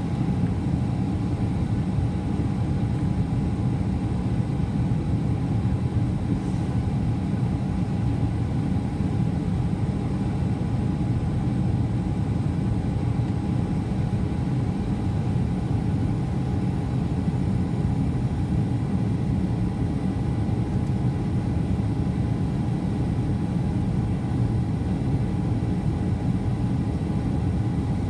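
Steady airliner cabin noise heard from inside the passenger cabin on approach: a low, even rush of engine and airflow noise, with a faint steady tone running through it.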